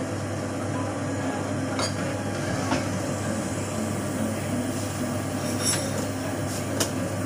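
Commercial espresso machine's pump running with a steady low hum while it brews a shot into a cup. A few light clinks are heard on top.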